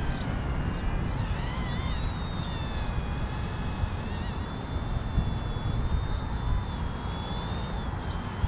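Small electric RC helicopter's motor and rotor whining as it flies around, the pitch rising about two seconds in, holding, then dropping near the end. Heavy wind rumble on the microphone throughout.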